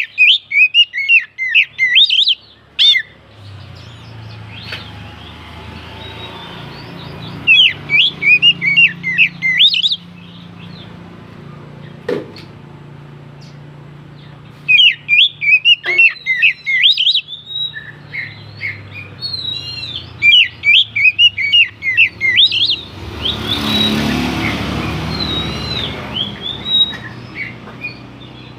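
Oriental magpie-robin (kacer) singing in bursts of rapid, varied whistled phrases a few seconds long, with pauses between, over a steady low hum. A rushing noise comes up about three-quarters of the way through.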